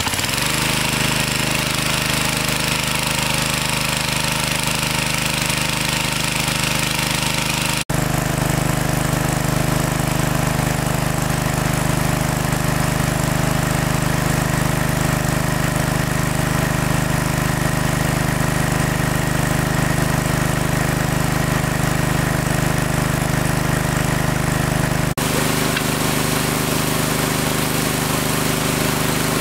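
Small engine running steadily at a constant speed, with two abrupt cuts where its tone shifts slightly.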